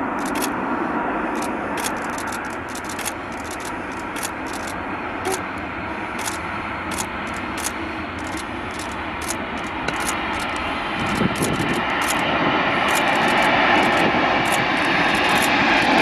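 Boeing 747 four-engine cargo jet landing: steady jet engine noise through the approach and touchdown, swelling louder over the last few seconds as it rolls out on the runway. A scatter of sharp high ticks runs through it.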